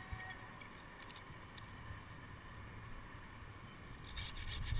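Faint wind rumble on a helmet-mounted camera mic with a few light clicks of climbing hardware. Near the end, a curved hand pruning saw starts cutting into a pine limb and the sound grows louder.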